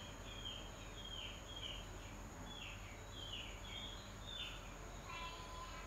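A small bird chirping repeatedly: short, high chirps that slide downward, about two a second, with a lower held note near the end.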